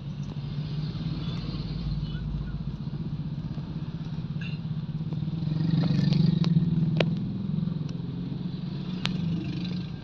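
Road traffic heard from inside a car cabin: a steady low engine hum that swells louder about six seconds in, with a few sharp clicks and rattles in the second half.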